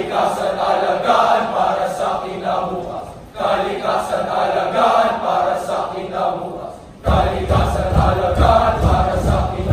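A speech choir of young male voices chanting in unison, in phrases with short breaks. About seven seconds in, backing music with a deep bass comes in under the voices.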